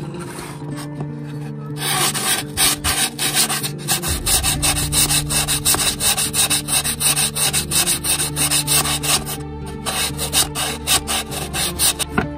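A sanding block is rubbed back and forth along the edge of a thin wooden sheet in quick, dry, scratching strokes. The sanding is light at first, grows louder and faster about two seconds in, and stops shortly before the end.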